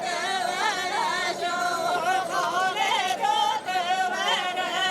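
Singing with music: a continuous vocal melody that wavers and ornaments around a held note.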